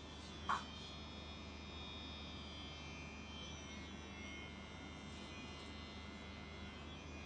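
Cordless electric hair trimmer running with a faint, steady buzz as it trims around the ear. There is a brief sharp squeak about half a second in.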